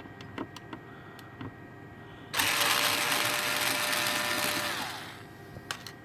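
Small electric screwdriver spinning for about two and a half seconds, backing a screw out of a graphics card cooler, then winding down with a falling whir. Light clicks of the bit and screws come before it.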